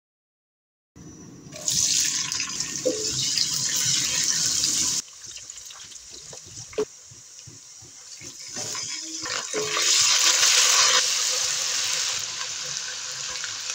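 Sliced onions sizzling in hot oil in a nonstick wok, with a silicone spatula scraping and tapping as they are stirred. The sizzle starts suddenly and loud about two seconds in, drops away in the middle while the spatula strokes are heard, then swells loud again toward the end.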